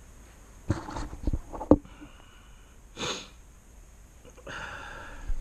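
A few sharp knocks of handling, then a person sniffling: a short sniff about halfway through and a longer one near the end.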